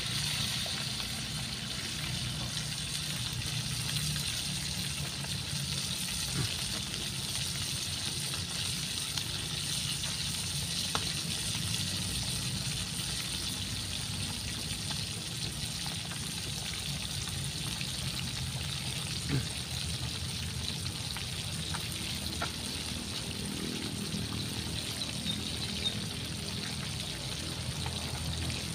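Whole fish frying in hot oil in a wok, a steady sizzle with a few faint clicks here and there.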